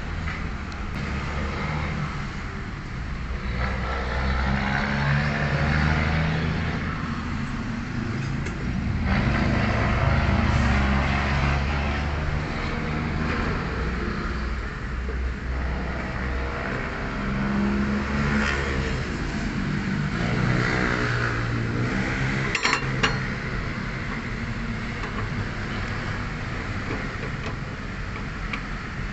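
Motor vehicle engine noise that swells and fades over several seconds at a time, with a short cluster of sharp clicks about 23 seconds in.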